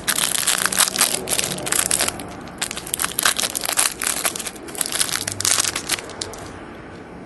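Thin clear plastic card sleeve crinkling as hands work a trading card in and out of it, in a run of rustling bursts that die away near the end.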